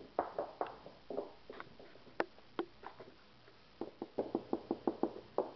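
West Highland white terrier chewing and gnawing on something held in its paws: a series of short clicking crunches, coming in a quick run of about six a second near the end.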